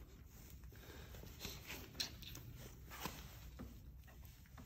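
Quiet room tone with faint rustling, and two soft clicks about two and three seconds in.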